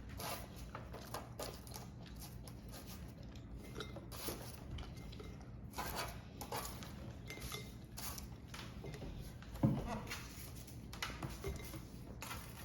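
Light clinks and knocks of kitchen handling, typical of crisp dried apple rings and glass jars being packed. There is a louder knock about ten seconds in.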